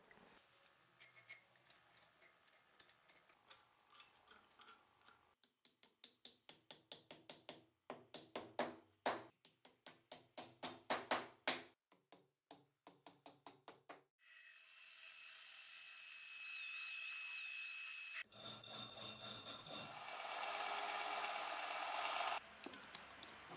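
Light tapping at first, then a long run of sharp wooden knocks, two or three a second, as the axe head is seated on its new birch handle. Then a power tool runs steadily, louder for the last few seconds when a bench belt-and-disc sander is running, and it cuts off suddenly near the end, followed by a few clicks.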